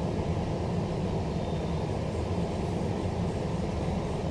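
Steady low hum inside a Bombardier-built Queensland Rail NGR electric train car standing at a platform with its doors closed: the train's onboard equipment running while it waits.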